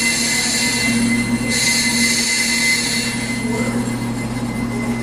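Brake lathe turning a brake rotor while its cutting bit shaves the metal: a steady motor hum under a high metallic screech. The screech drops away about three seconds in.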